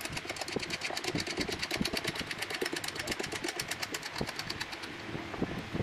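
A nut spun by hand along a threaded steel rod, making a fast, even rattle of about ten clicks a second that stops about five seconds in. Light knocks of handling come with it.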